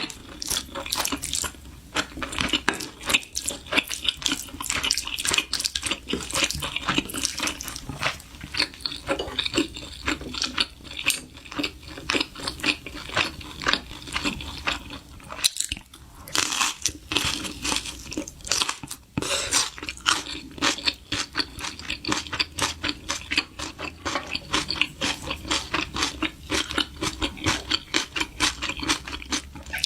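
Close-miked eating: continuous chewing and crunching of food, a dense run of small clicks and crackles.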